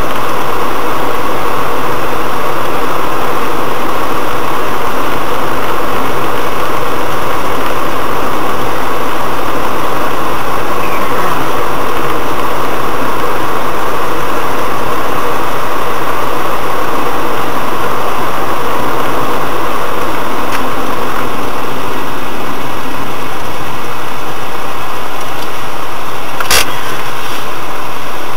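Car cabin road and engine noise picked up by a dashcam, a steady loud rush while driving; the low rumble drops away about three quarters through as the car slows and stops at a junction. A single sharp click sounds near the end.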